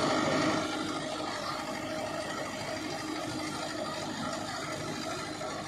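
Mahindra Novo 605 4x4 tractor's diesel engine running steadily as it pulls a seed drill through rice stubble.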